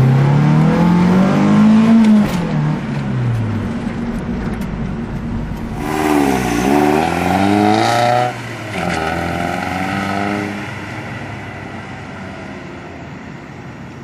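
Naturally aspirated 420A 2.0-litre four-cylinder in a second-generation DSM, breathing through a stock GST exhaust: the revs climb and drop in the first few seconds, then climb twice more as the car accelerates, and the sound fades away over the last few seconds.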